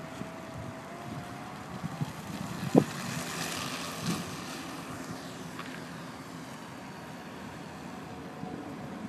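Small electric motor and propeller of an RC trainer plane whining as it takes off, the pitch rising slightly as the throttle opens. Wind rushes on the microphone, and one sharp knock sounds about three seconds in.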